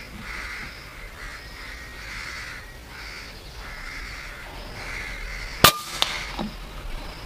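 Crows cawing repeatedly, then a single sharp shot from a .25 PCP air rifle (Avenger/Nova Leviathan) about two-thirds of the way through, followed a third of a second later by a second, weaker crack.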